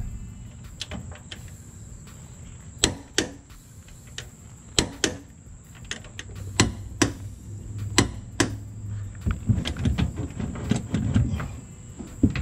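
Hand tools working on a truck's front suspension: sharp metallic clicks and knocks of wrenches and sockets on the bolts, often coming in pairs, as the parts are fastened up.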